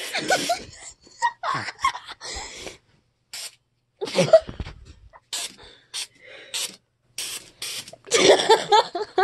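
Aerosol cans of silly string spraying in many short hissing bursts, one after another, densest near the end.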